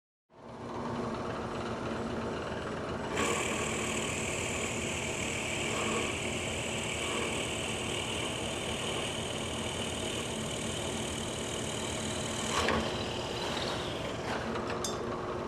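Drill press running at 1,000 RPM with a steady motor hum; about three seconds in, a brad point drill bit bites into a 2-inch-thick block of black walnut under constant weighted feed, adding a steady high cutting hiss. The cutting stops abruptly after about nine seconds, with a knock, and the motor runs on with a couple of light clicks.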